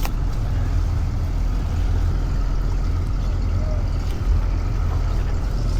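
Parasailing boat's motor running steadily under way, a continuous low rumble with rushing wind or water noise over it.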